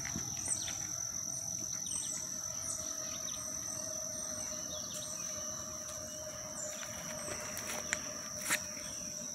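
Summer woodland ambience: a bird calling in a steady series of short high chirps over a continuous high-pitched insect drone, with a couple of light knocks near the end.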